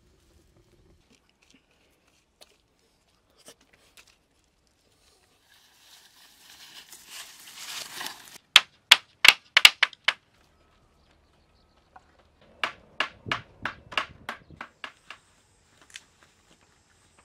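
A rising rustle or scrape, then a quick run of about six sharp knocks. A few seconds later comes a second, steadier run of about ten knocks, some with a dull thud in them.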